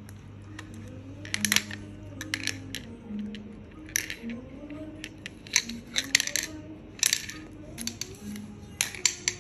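A toy poodle puppy gnawing on a hard plastic toy and knocking it against a marble tile floor: irregular sharp clicks and clatters, several in quick clusters, over soft background music.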